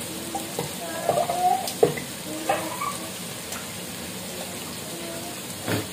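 Instant coconut milk squeezed from a sachet into a plastic jug of blended spice paste and water: thin liquid trickling and splashing, with a few light clicks from handling the sachet and jug.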